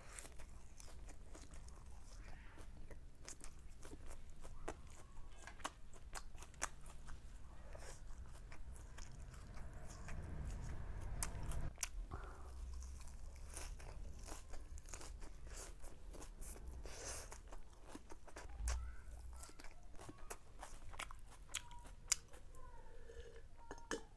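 Close-miked chewing and mouth sounds of someone eating, with many small sharp crunches and wet clicks, over a low steady hum.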